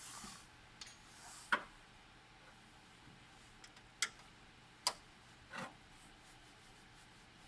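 A few sharp clicks and knocks, about four, with brief scraping before the first. These are handling sounds of plastic and metal parts being worked on.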